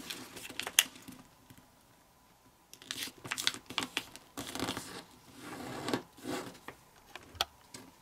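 Kami origami paper rustling and crinkling under the fingers as flaps are folded and creased flat. A sharp tick comes about a second in, then a pause of about a second before the rustling starts again.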